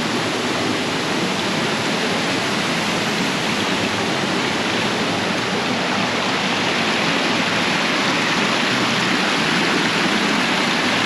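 Waterfall's steady rush of falling water, close by and loud, growing slightly louder as it goes.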